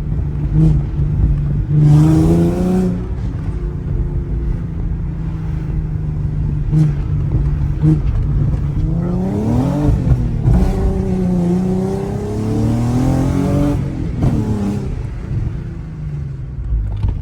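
Car V6 engine running through test pipes and being revved several times, the pitch sweeping up and falling back to idle, with a few short sharp cracks in between.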